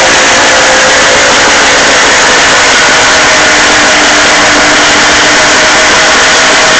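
Suzuki 40 hp outboard motor running steadily and loud, close to the microphone, on a newly fitted CDI ignition unit.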